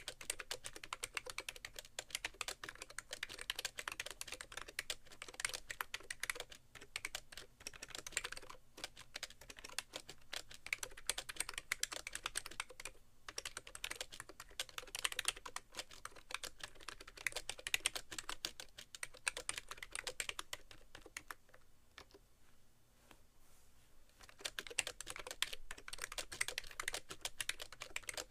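Fast, continuous typing on a BTC 5100c mini keyboard with rubber-dome switches and sliders, a dense run of key clicks with a hollow, almost thock-like sound from the keyboard sitting directly on its tray. The typing pauses for about three seconds roughly three quarters of the way through, then resumes.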